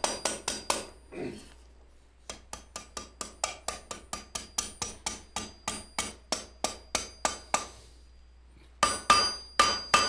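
Blacksmith's hammer striking red-hot steel on a London pattern anvil, curling the end of an S-hook into a pigtail. A run of light, quick blows at about four a second is followed by a short pause and then a few louder blows near the end, each with a metallic ring from the anvil.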